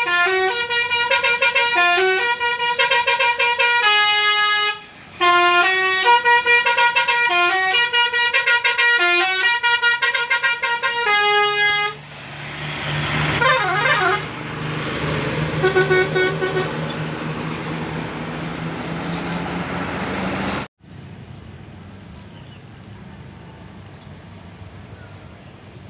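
Telolet basuri bus horn, a multi-tone air horn, playing a quick melody of short stepped notes for about twelve seconds, with one brief break about five seconds in. A noisier stretch with a low steady hum and a few short horn notes follows, and it cuts off suddenly about 21 seconds in, leaving a quieter steady background noise.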